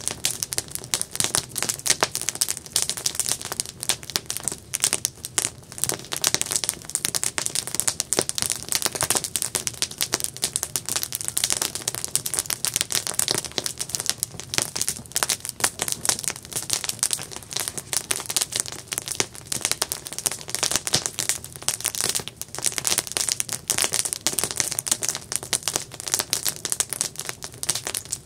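Campfire crackling: a dense, steady stream of small snaps and pops.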